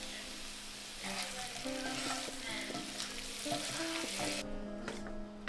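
Food sizzling in a hot frying pan, a steady hiss that cuts off about four seconds in. Background music plays underneath.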